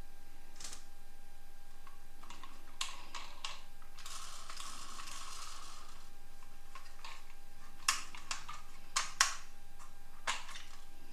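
Small diecast toy cars being handled, giving light clicks and clacks with a scraping rattle from about four to six seconds in. Four sharper clacks come in the second half, over a faint steady whine.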